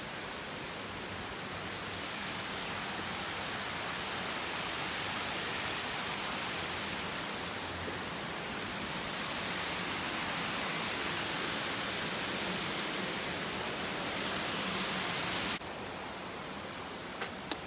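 Steady rush of water from a small cascade tumbling over rocks. It stops abruptly near the end and gives way to a quieter background hiss.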